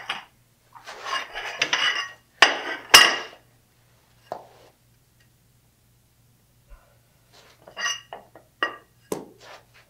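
Porcelain floor tiles clinking and clacking against one another as a stack is grabbed and handled, the loudest clacks about three seconds in. After a quiet stretch there are lighter clinks near the end as single tiles are slid off the stack.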